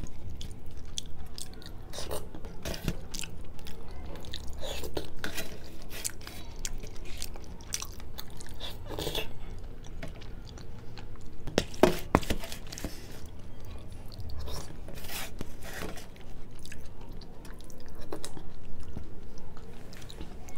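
Close-miked chewing and wet mouth sounds of a person eating potato curry and chickpea curry, with many short clicks of the mouth and spoon; the loudest sharp click comes about twelve seconds in.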